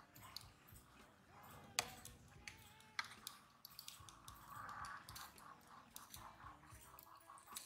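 Faint sharp clicks of small metal tongs against a bowl as a miniature chicken drumstick is dipped in liquid coating. About halfway there is a soft rustle as it goes into the crumb coating.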